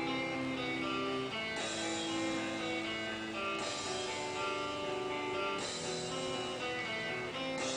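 Rock music playing from a radio station: guitar-led, with a cymbal wash coming in about every two seconds.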